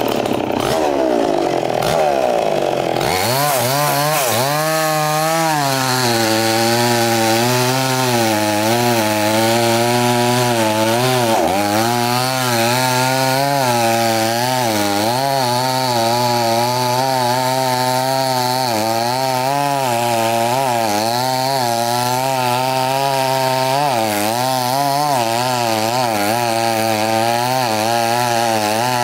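Two-stroke gasoline chainsaw cutting through a coconut palm stump. It starts at high revs, then about three seconds in drops to a lower note that wavers up and down continuously as the chain works through the wood, with one brief dip about eleven seconds in.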